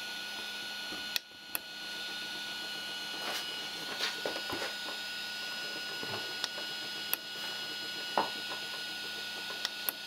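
Anet A8 3D printer switched on and idle, its fans humming steadily, with a few short clicks as its menu buttons are pressed to scroll through the SD card file list.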